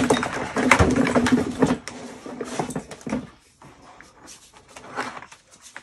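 Flexible drain-cleaning shaft being pulled and fed by hand through the plastic drum of a Ridgid K9-204 machine, its sheath scraping, rustling and clicking against the drum. Busiest in the first two seconds, then a few scattered clicks.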